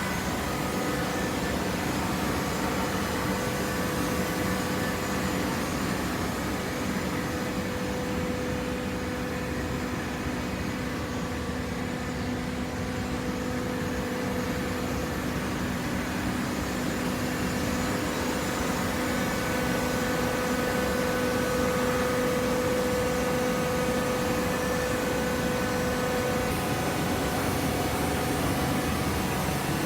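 Hydraulic automatic horizontal cardboard baler running: a steady machine hum with a constant low tone over a noisy background.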